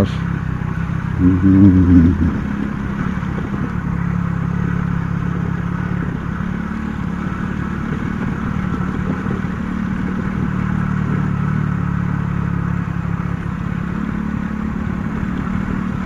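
A 50 cc motorcycle's small engine running at a steady pace while riding, with the bike rattling over rough, unevenly laid concrete.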